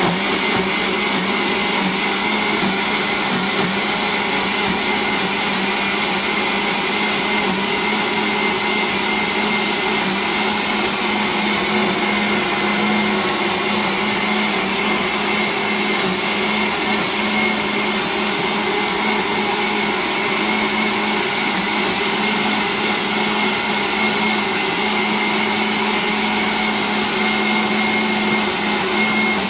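Electric blender running at a steady speed, blending a smoothie thickened with Quaker oats, its motor holding a constant hum.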